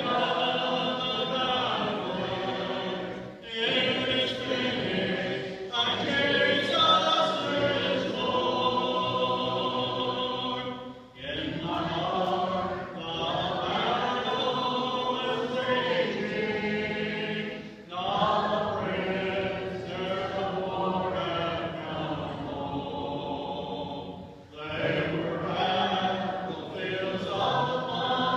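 Congregation singing a hymn together a cappella, in sustained phrases a few seconds long with short breaks between them.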